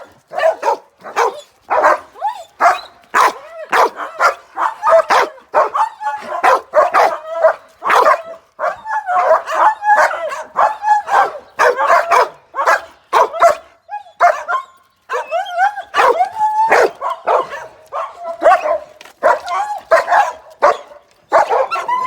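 Dogs barking, yipping and whining over and over, in quick short barks several a second: excited dogs eager to go out.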